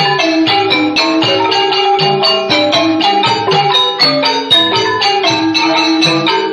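Khmer pinpeat ensemble music: roneat xylophones and kong vong gong circles playing a fast, even stream of struck notes.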